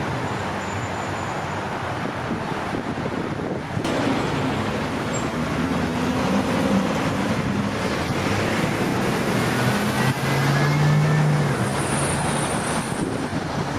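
Road traffic passing close by: a steady wash of engine and tyre noise, growing louder about four seconds in as vehicles go past, loudest shortly before the end.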